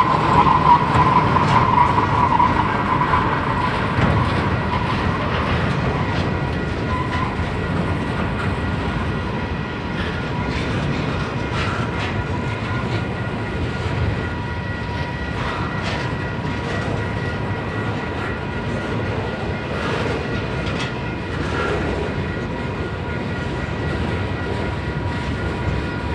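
Double-stack container train's well cars rolling past close by: steady wheel-on-rail rumble with scattered clicks, and a high wheel squeal that fades out over the first few seconds.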